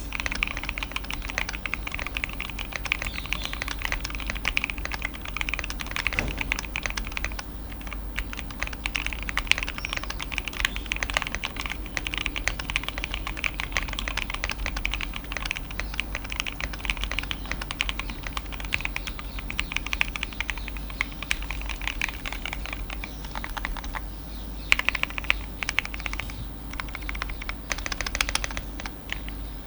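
Steady, fast typing on a Keychron Q1 Pro mechanical keyboard fitted with the acoustic upgrade kit and tape mod, its lubed linear switches (Alpaca V2, NK Cream and Gateron Oil King) under PBT keycaps giving a dense run of keystrokes.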